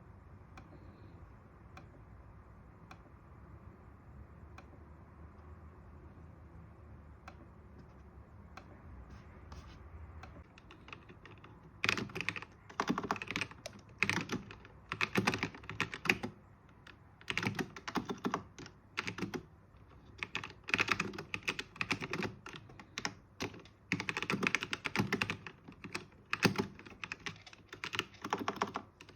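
Typing on a Ziyoulang K68 wireless mechanical keyboard. After a stretch of low hum with a few scattered key clicks, runs of rapid keystrokes in bursts begin about twelve seconds in.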